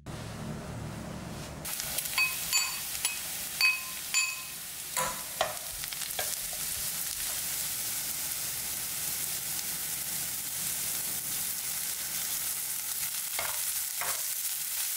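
Food frying in hot oil in a pan with a steady sizzle that starts about two seconds in. A metal utensil clinks against the pan about five times with a short ring, then knocks more dully a few times while stirring.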